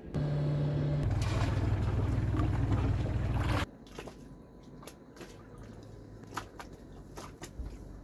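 A boat's motor running with water rushing past, its note stepping down about a second in; it cuts off suddenly after about three and a half seconds, leaving faint clicks and knocks over a low hum.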